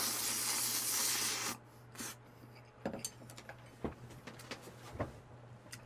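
A person slurping sauced instant noodles from a bowl: a loud hissing draw of air and noodles for about a second and a half. After that comes quieter chewing with small wet clicks.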